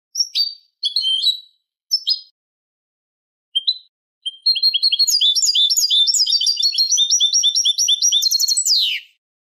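Recorded European goldfinch song in the Málaga copla style, the kind played to teach young goldfinches and hybrids: a few short, separate chirps over the first four seconds, then a fast, unbroken run of twittering notes for about five seconds that ends in a falling note.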